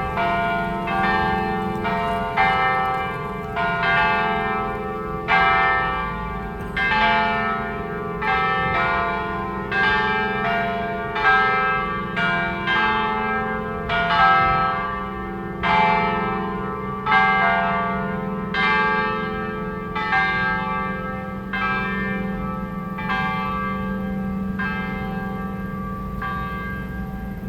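Church bells rung for noon: several bells of different pitch struck in quick succession, about one stroke a second or a little faster, each ringing on under the next so that the tones overlap into a steady hum. The strokes die away near the end.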